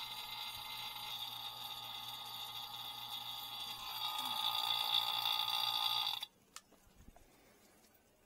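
Electric refrigeration vacuum pump running steadily with a high whine while it pulls a vacuum on a mini-split's refrigerant lines to draw out air and moisture. It grows louder about four seconds in, then is switched off and cuts out suddenly about six seconds in.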